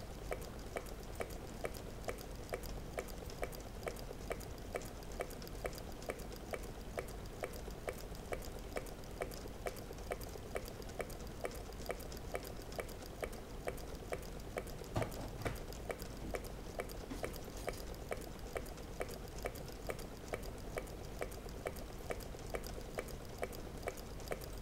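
Meccano-built Stirling engine running steadily, its mechanism clicking in an even rhythm of about two clicks a second. There is one louder knock about fifteen seconds in.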